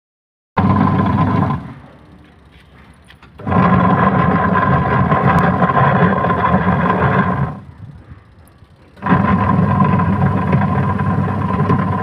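Top-loading washing machine's wash motor driving the pulsator through its belt and gearbox, running as a steady hum with a whine. It switches on and off three times, a short burst, then a longer one of about four seconds, then another from about nine seconds in, the start-stop pattern of the wash agitation.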